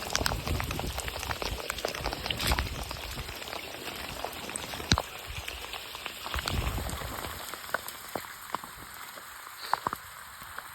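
Heavy rain falling steadily, with many individual drops striking close by as sharp, irregular taps; one tap about five seconds in is the loudest. The rain thins a little near the end.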